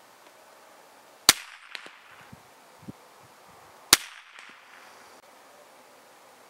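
Two shots from a Norinco NS522 bolt-action .22 rifle firing Aguila 60-grain subsonic rounds, heard from down by the target. They come about two and a half seconds apart, each a sharp crack followed by a few fainter knocks, over a faint steady hum of farm machinery working nearby.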